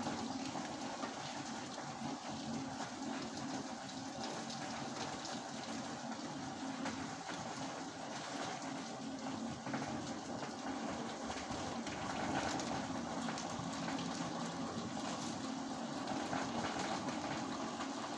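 Steady rain falling, a constant even hiss of many drops with no let-up.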